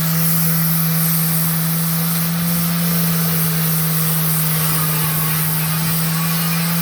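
Electric sanding machine running steadily at constant speed, sanding down a ground-off weld on an aluminium section: one continuous motor hum with a high hiss over it.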